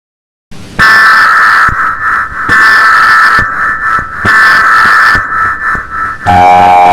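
Emergency Alert System SAME header: three loud, raspy digital data bursts of about a second each, separated by short gaps. Just before the end, the harsh, steady two-tone EAS attention signal starts.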